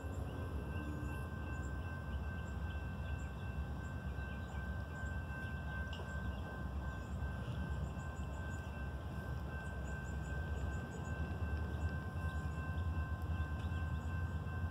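Outdoor ambience: wind rumbling on the microphone, under a steady high-pitched tone and faint bird chirps in small quick runs.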